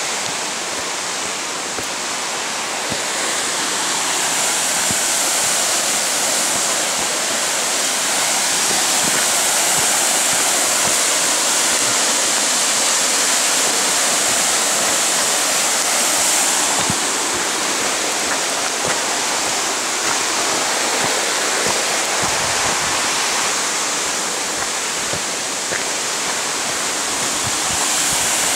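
Steady rushing of a mountain river's water tumbling over rocks and falls, a little louder from about four seconds in.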